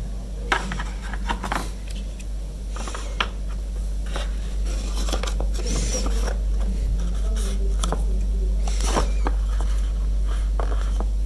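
Handling noise from packing a toy drone and its battery into a molded storage case: scattered clicks, knocks and scraping of parts against the case and lid. A steady low hum runs underneath.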